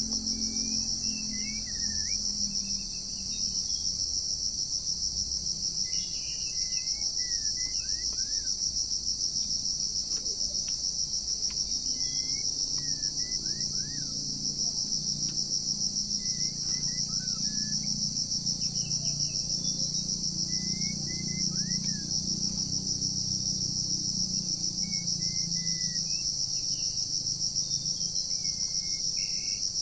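A steady, high-pitched insect drone runs throughout. Over it a songbird gives short whistled phrases every few seconds, many of them sliding downward.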